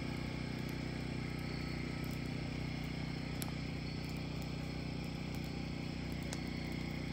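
Large wood campfire burning in a steel fire ring, with a few faint scattered crackles over a steady low hum.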